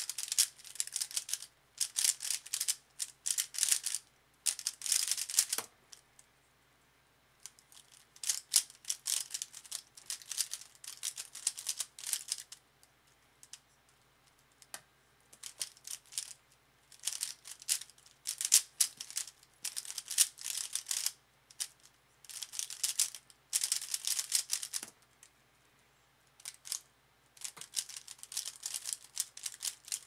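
DaYan ZhanChi 55mm 3x3 speedcube being turned at speed: rapid, dense clacking of the plastic layers. It comes in bursts of several seconds, with short pauses between them.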